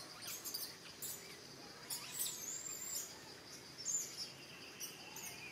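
Forest ambience: short high bird chirps several times over a steady high-pitched insect drone.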